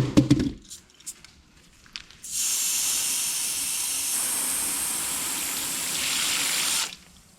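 Water being sprayed over a spare tire to check it for air-leak bubbles: a steady hiss that starts about two seconds in, runs for about four and a half seconds and stops abruptly.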